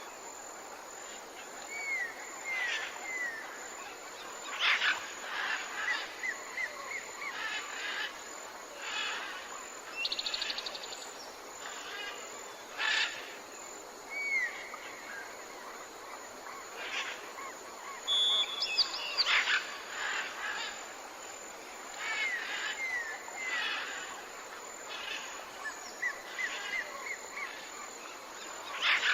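Tropical forest ambience with several birds calling over a steady hiss: short curved chirps, high whistles and a few harsher, louder calls. The same stretch repeats about every 20 seconds, as a looped recording does.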